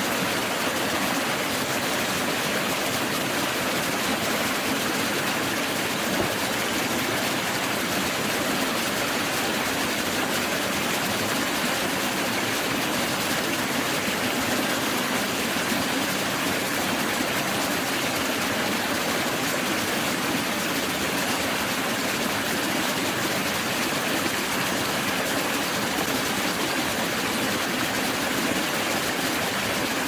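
Forest stream water rushing steadily over rocks, an unbroken even rush with no change in level.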